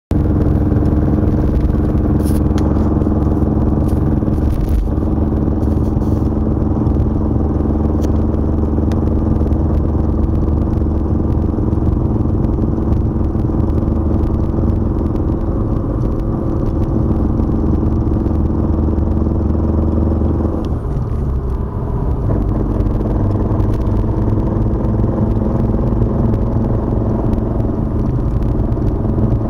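BMW E36 325's 2.5-litre straight-six running steadily with a suspect noise that at first seems to come from the gearbox. About two-thirds of the way through the sound dips briefly and settles into a slightly different note.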